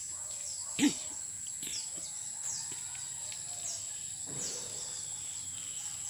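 Outdoor ambience of insects droning steadily at a high pitch, with birds chirping: short falling calls that repeat about once a second. A brief louder sound comes about a second in.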